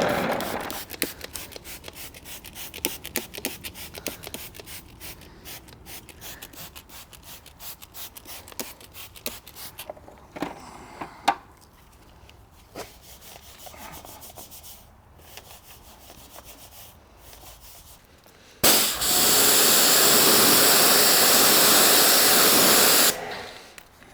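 Rubbing and rapid crackling from paint protection film being worked on a car panel, thinning out to scattered clicks. Near the end, a loud steady hiss runs for about four and a half seconds, then stops.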